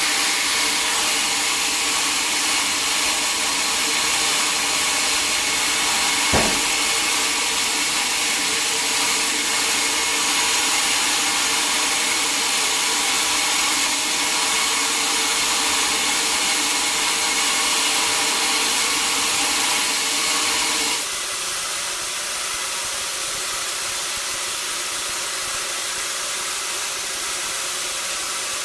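Sawmill saw running steadily through mahogany, a loud even machine noise with a single knock about six seconds in. About three quarters of the way through it drops to a quieter steady run.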